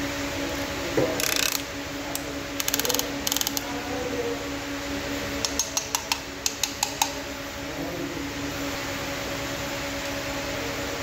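Sharp metallic clicks and clinks of metal tools and parts being handled, with a quick run of about seven clicks around the middle, over a steady electric hum.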